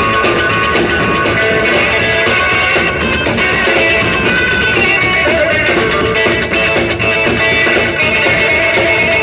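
Live rockabilly band playing with a steady beat: electric guitar, drum kit and upright double bass.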